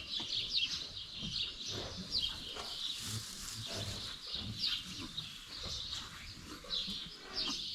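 Several small birds chirping, a busy chorus of short, high, falling calls overlapping one another.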